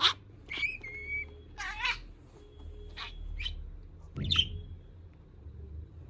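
Blue budgerigar chirping in a string of short, sharp calls, with a brief held whistle about a second in and a wavering warble near two seconds; a louder chirp comes just past four seconds.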